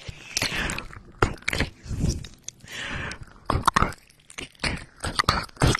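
Close-miked ASMR mouth sounds: irregular wet clicks, licks and breathy smacks right against the microphone.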